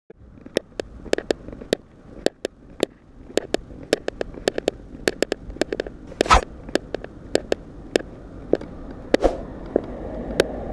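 A string of sharp, irregular clicks and taps, two to four a second, with two louder knocks about six and nine seconds in. Under them a low steady rumble grows toward the end.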